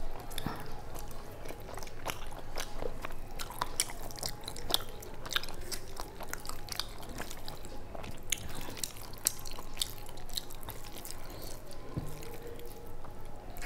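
Close-up eating sounds: chewing with many small irregular wet clicks, and fingers squishing rice mixed with cabbage curry on the plate.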